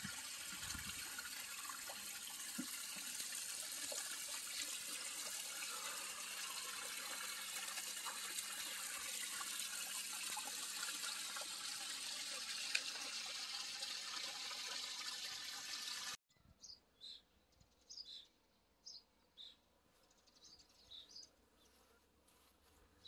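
Steady sound of running water at a garden pond, which cuts off abruptly about two-thirds of the way through. After the cut: near silence with a scatter of faint, short, high chirps.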